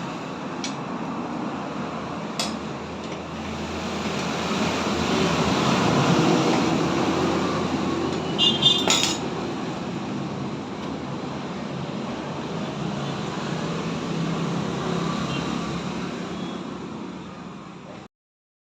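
A steady mechanical or traffic-like noise that swells and fades, with a sharp click about two seconds in and a quick run of metallic clinks, like tools or metal parts knocking together, about nine seconds in.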